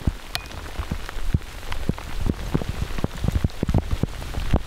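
Pea-sized hail falling, the pellets striking close by in a dense, irregular stream of sharp little ticks.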